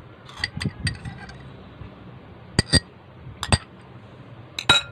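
Metal spoon clinking against glass bowls as softened butter is scraped out of a small glass bowl into a larger one: scattered sharp clinks, several in quick pairs, each with a short glassy ring, the loudest cluster near the end.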